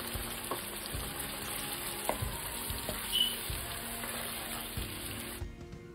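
A wet masala paste of onion, yogurt and tomato sizzling in oil in a kadai as a spatula stirs it, with light scrapes and taps against the pan. A little water has just been added, so the masala is cooking down. The sizzle cuts off suddenly near the end.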